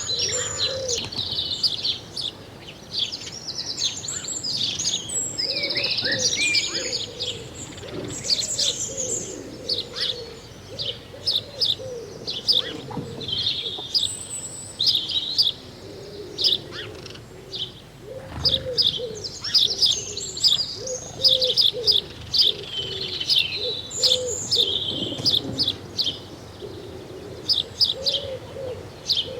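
Many small birds chirping and twittering in quick, overlapping calls, with a low, wavering cooing of doves going on underneath.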